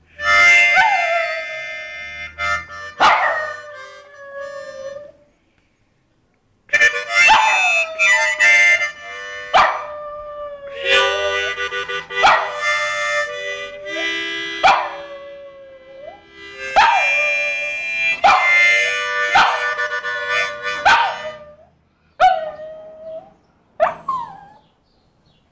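Harmonica played in short blues phrases while a Shih Tzu howls along, its howls sliding down in pitch. Both break off for about a second around five seconds in, and the playing and howling grow sparse near the end.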